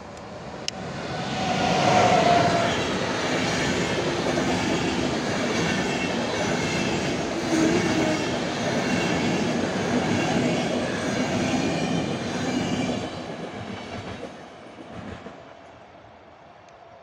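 A passenger train hauled by a PKP InterCity EU44 Husarz (Siemens Taurus) electric locomotive passes at speed. Its sound swells as the locomotive goes by about two seconds in, with a brief steady whine. A continuous rumble and clatter of the coaches' wheels on the track follows and fades away after about thirteen seconds as the last coach passes.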